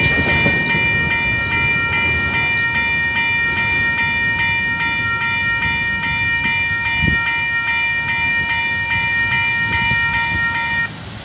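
Railway level crossing warning bell ringing continuously while the crossing lights flash, cutting off abruptly near the end once the boom barrier has lifted and the crossing has cleared. A low rumbling haze runs underneath, with a single low thump about seven seconds in.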